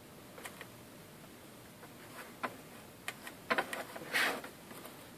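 Scattered light taps, clicks and rustles of fingers working over a gasket on a sheet of cardboard as thin gasket sealer is spread on it by hand; a short scrape about four seconds in is the loudest.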